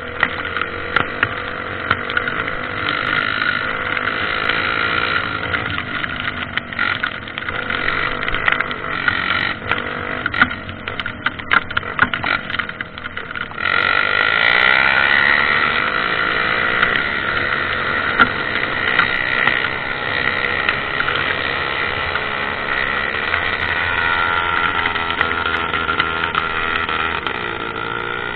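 Dirt-bike engine running steadily, with scattered knocks, then turning louder about halfway through as the revs pick up.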